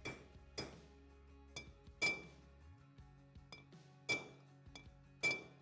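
A hammer tapping a bearing driver to seat a new bearing into an aluminium motorcycle cylinder head: about seven uneven, sharp metallic taps, each with a short ring. The loudest taps come about two seconds in, about four seconds in and near the end.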